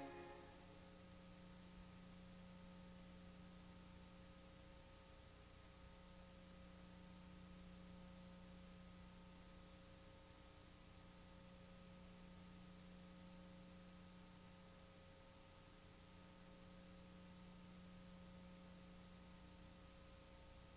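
Near silence: a faint, steady electrical hum with light hiss, just after the closing music stops.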